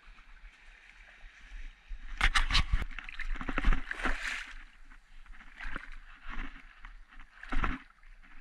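Shallow water splashing and sloshing in several bursts, starting about two seconds in, with one more loud splash near the end.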